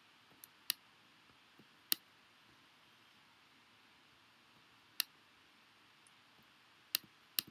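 Computer mouse clicking: about five sharp, separate clicks at irregular intervals over faint room tone, as an on-screen image is selected and resized.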